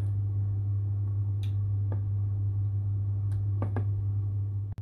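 A steady low hum, with a few faint clicks from a wooden spoon stirring thickening condensed-milk caramel in a metal saucepan.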